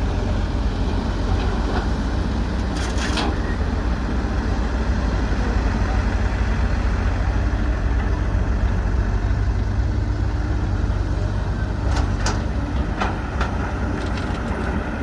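Heavy diesel engine running steadily with a deep, even rumble. A few short, high clinks come through about three seconds in and again near the end.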